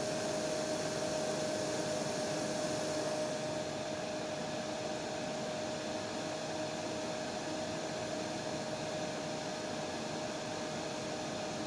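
Hair dryer running steadily: a constant rush of air with a steady whine from its motor. About three and a half seconds in, the highest hiss softens slightly, then it runs on unchanged.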